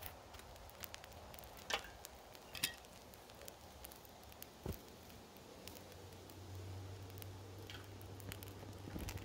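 A few sharp metallic clicks as a steel crucible of molten aluminum is handled in tongs, then a low steady hum while the aluminum is poured into a muffin tin.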